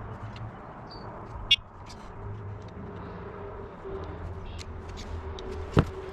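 Scattered light clicks and taps, with a sharp click about a second and a half in and a louder knock near the end, over a faint steady tone.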